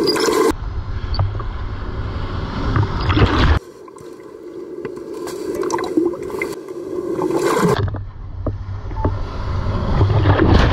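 Breaking shorebreak waves and water washing over a camera held at the waterline, with gurgling and splashing. Twice the sound dulls to a deep rumble for about three seconds, as the lens goes under the surface, and each time it cuts off abruptly.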